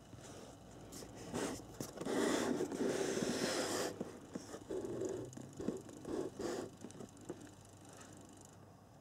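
Cardboard packaging being handled, with scraping and rustling. The loudest stretch lasts about two seconds, starting about two seconds in, and is followed by a few shorter scrapes and knocks.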